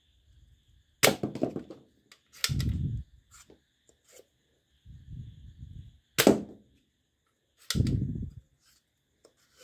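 Green plastic toy foam-dart revolver being loaded and worked by hand: four loud, sharp plastic clacks, each followed by a short dull rattle, with smaller clicks in between.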